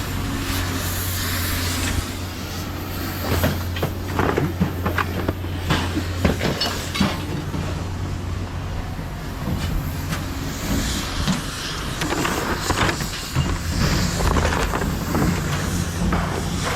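A vehicle engine running steadily, with irregular knocks and clanks throughout.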